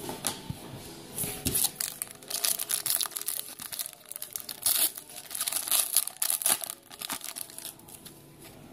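A trading card pack's wrapper being torn open and crinkled, heard as a run of irregular crackling rustles.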